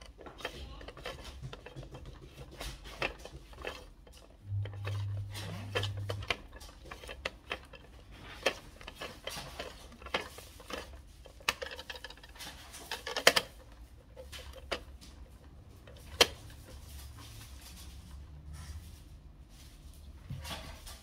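Scattered small plastic clicks and taps from a toy washing machine's door and drum being handled. A short steady low hum starts about four and a half seconds in.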